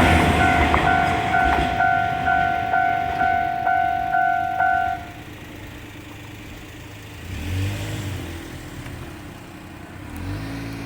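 Railway level-crossing warning bell ringing, an electronic two-tone strike about twice a second, over the fading noise of a passing train; it cuts off about five seconds in. A road vehicle's engine then passes near the end.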